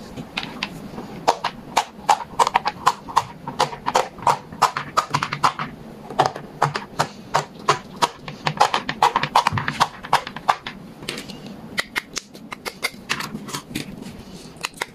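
Silicone pop-it fidget toy bubbles being pressed one after another: a rapid, irregular run of popping clicks, several a second, with a few short pauses.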